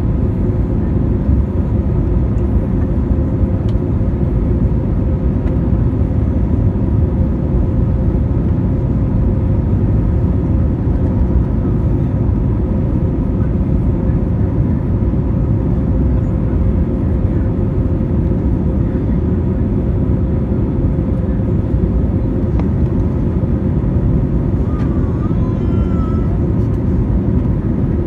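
Cabin noise of an Airbus A320neo climbing out after takeoff, heard inside the cabin over the wing: a steady, loud roar of the engines and rushing air, with a faint steady hum running through it.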